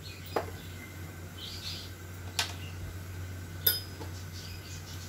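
A metal spoon clicking against the steel pan three times, single sharp clicks, over a steady low hum, with faint chirping in the background.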